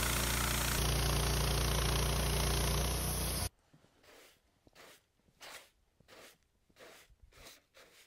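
Woodmizer LT15 sawmill running, its band blade sawing through a dry Douglas fir log; the sound cuts off suddenly about three and a half seconds in. Then a bristle brush sweeps sawdust off the sawn board in soft, even strokes, about two a second.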